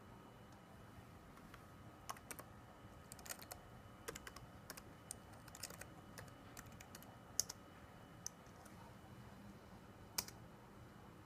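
Typing on a ThinkPad laptop keyboard: faint, irregular key clicks for about six seconds, starting about two seconds in, then one louder key press near the end.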